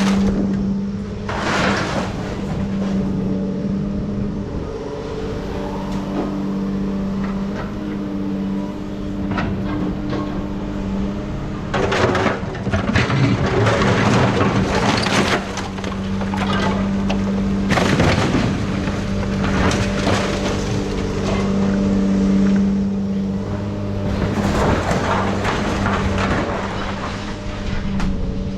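A steady engine hum under repeated clanks, rattles and noisy bursts from metal being worked on scrap refrigerators.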